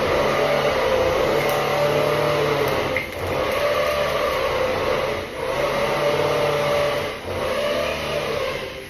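Electric arc welding with a portable stick welder: the arc buzzing and crackling steadily, broken off briefly three times between runs and stopping at the end.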